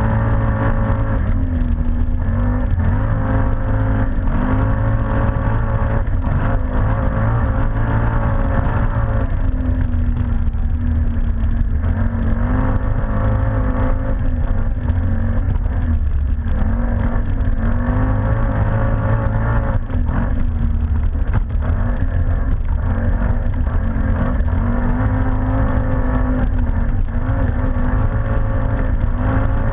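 ATV engine running under way, its pitch rising and falling again and again as the throttle is opened and eased, over a constant low rumble.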